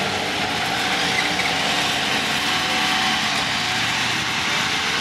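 Side-by-side UTV engines running steadily at low speed as the machines pull into line on the trail.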